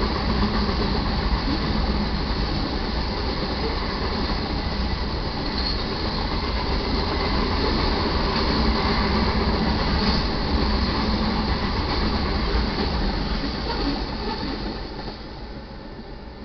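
Freight train's covered hopper cars rolling past over the rails: a steady heavy rumble and wheel noise that fades quickly about fourteen seconds in as the end of the train goes by.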